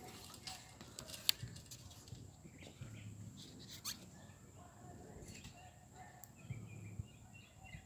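Quiet outdoor background with a few faint, sharp knocks or clicks.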